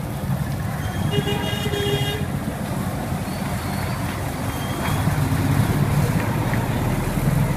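Motorbike engine running close by over street traffic, with a vehicle horn sounding once for about a second, a second in.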